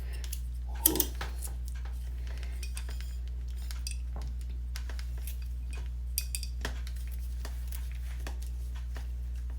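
A few light clicks and clinks from handling a curling iron while curling hair: a sharp pair about a second in and a few fainter ones later. A steady low hum runs underneath.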